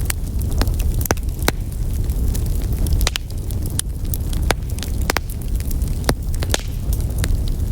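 Wood fire burning in a fireplace: a dozen or so sharp pops and snaps at irregular intervals over a steady low rumble of the flames.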